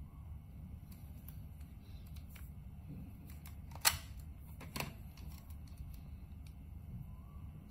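Two sharp plastic clicks, about a second apart, as a travel plug adaptor and the charger plugged into it are gripped and shifted by hand, over a steady low hum.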